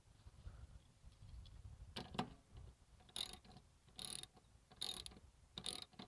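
Rummaging through parts and clutter: a run of short clatters and rattles, about one a second from two seconds in, over a low rumble of handling noise.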